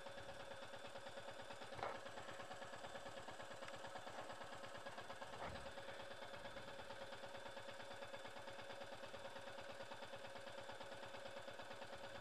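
Royal Enfield Meteor 350's single-cylinder engine idling with an even, steady putter. Two light knocks sound about two and five and a half seconds in.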